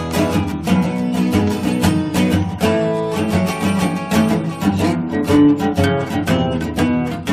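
Background music: acoustic guitar, strummed and plucked, with a steady rhythm.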